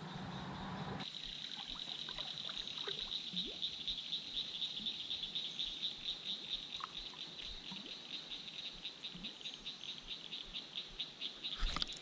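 About a second of water noise, then a steady, high, rapidly pulsing trill of calling creekside wildlife.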